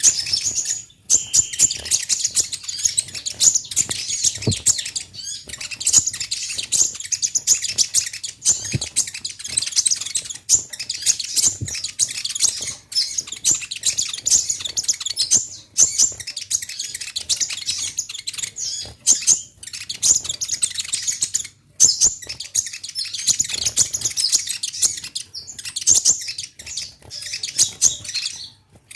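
Little spiderhunter (konin, "kolibri ninja") singing energetically: a dense, almost unbroken stream of rapid high chirps and trills, pausing only briefly a few times.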